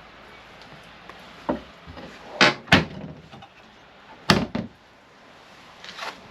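Travel-trailer kitchen cabinet doors being opened and shut: a handful of sharp knocks and clacks, the loudest about two and a half and four and a quarter seconds in.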